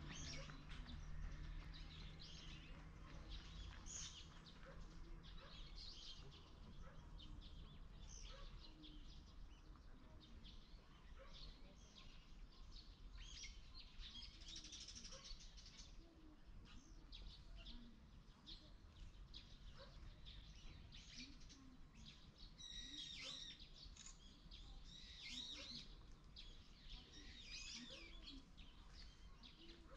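Faint chirping of small birds, many short calls overlapping, with a few louder calls about three-quarters of the way through, over a low steady background rumble.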